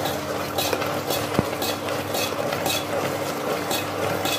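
A metal spoon stirring thickening custard milk in a stainless steel saucepan, scraping round the pan in repeated strokes of one to two a second, with one sharper clink about a second and a half in. A steady hum runs underneath.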